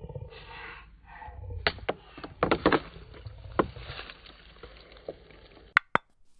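Rustling in forest undergrowth, slowed down to quarter speed so it sounds deep and smeared, with a run of crackles and knocks from about two to four seconds in. Two sharp clicks come near the end.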